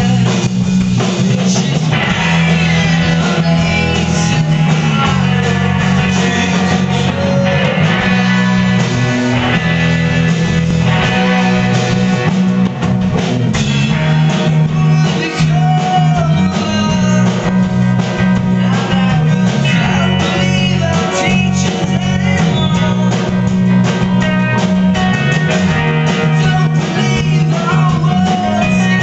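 Live rock band performance: a man singing over acoustic and electric guitars, bass and drum kit, heard through an audience camera's microphone.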